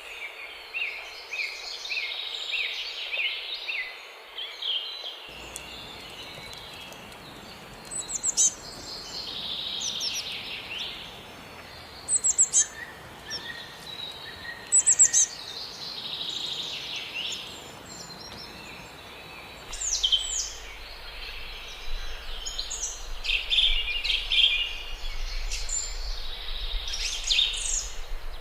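Several small songbirds chirping and singing in overlapping short calls and trills, with a few sharper, louder calls standing out, over a steady background hiss and a low rumble.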